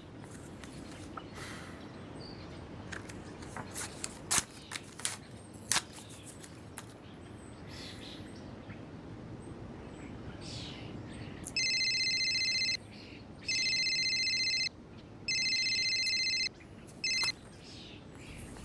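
Mobile phone ringing: a high electronic ringtone in three bursts of about a second each with short gaps, and a fourth cut short as the call is answered. Before it come several seconds of scattered clicks and handling noise.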